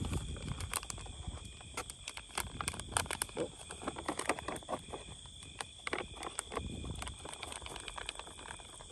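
Plastic zip-top bag and a paper fish-fry mix packet crinkling and rustling as the breading is poured in and the bag is handled, in irregular crackles. A steady high whine sounds underneath.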